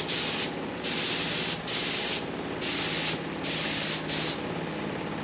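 Gravity-feed compressed-air paint spray gun hissing in short passes, about five bursts each under a second long, as red paint goes onto a car body. Under it runs the steady rush of a shop exhaust fan.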